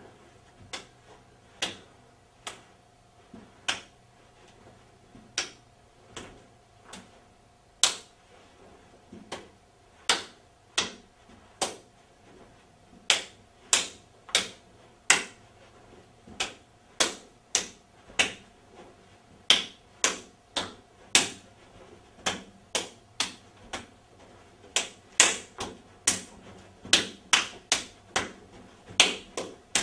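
Bare hands slapping against hands and forearms in a repeated blocking drill. The sharp slaps come at an uneven pace, growing faster and louder about halfway through.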